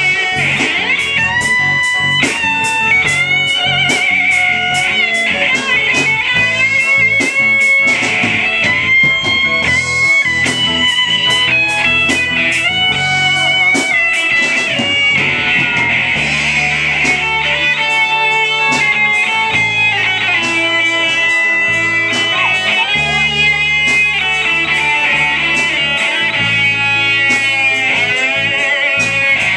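Live rock band playing an instrumental passage with no vocals: electric guitars, bass guitar, drums and keyboard, with a steady drum beat throughout.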